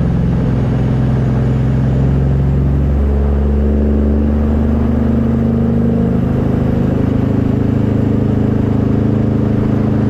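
Peterbilt semi truck's diesel engine running steadily, its note shifting in pitch about three seconds in and again a few seconds later.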